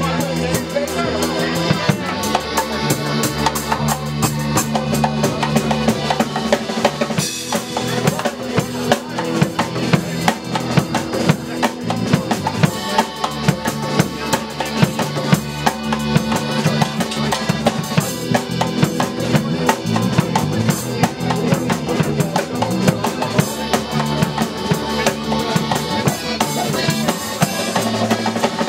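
Live folk band playing an up-tempo tune: a drum kit keeps a steady driving beat under a tuba bass line, with melodeon and electric bass or guitar.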